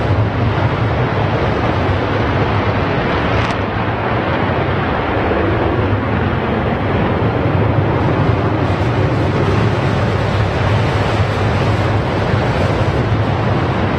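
F-15E Strike Eagle fighter jets taking off in afterburner: loud, steady jet engine noise with a deep low rumble.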